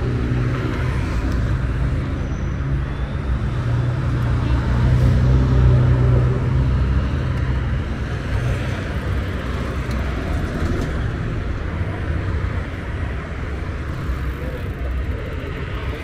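City street traffic: a nearby motor vehicle's engine hum swells to its loudest about five or six seconds in and then fades, over a steady rumble of traffic.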